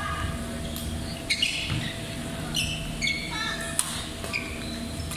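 Badminton doubles rally: sharp racket strikes on the shuttlecock and sneakers squeaking on the court floor, the crispest hit just under four seconds in.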